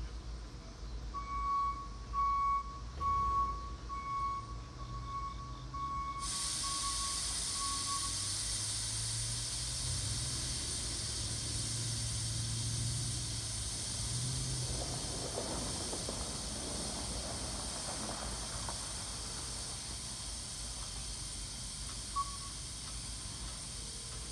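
Steady hiss of air escaping from a stopped coil train's air brakes after an emergency application, the sign of a train parted at a broken knuckle; the hiss starts abruptly about six seconds in. Before it, a high tone sounds on and off for several seconds, and a low rumble comes and goes in the middle.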